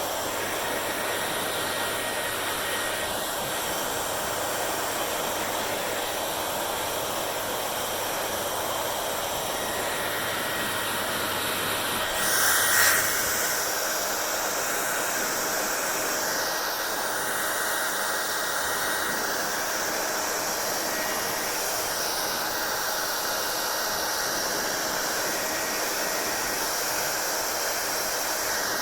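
Hair dryer blowing steadily, with a brief louder rush of air about twelve seconds in.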